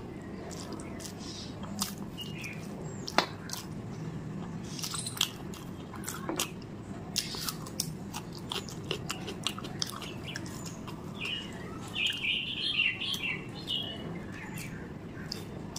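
Close-miked eating: chewing and lip-smacking on mouthfuls of rice and chicken curry eaten by hand, with many short wet clicks from the mouth and sticky fingers. A sharp click about three seconds in, and a brief run of high squeaky sounds a few seconds before the end.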